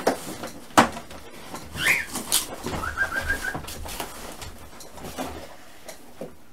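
Cardboard box being opened and handled, with a sharp knock about a second in, while a pet bird chirps a few times, once in a rising call and then in a quick run of short chirps.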